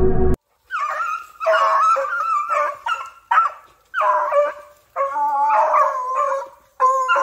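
American foxhounds baying in a series of about eight drawn-out, pitched bays with short gaps between them.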